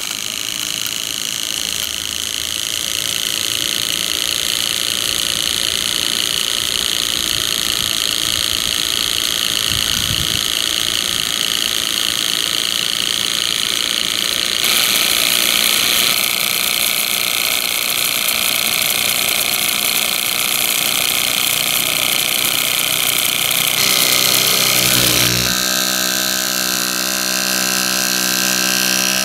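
Model marine steam plant running under steam: the small twin-cylinder steam engine turning steadily beside its boiler and burner, with a continuous hiss. The sound shifts abruptly about halfway through and again near the end.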